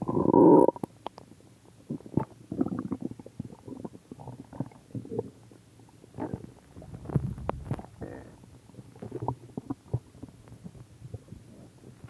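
A person's stomach growling and gurgling in irregular rumbles, loudest in a burst right at the start, with further clusters of gurgles about two and a half, seven and nine seconds in.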